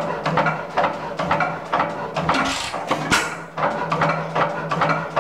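About-1920 9 hp Economy stationary engine running, a steady rhythm of clacks and knocks about three a second. A short hiss comes about two and a half seconds in.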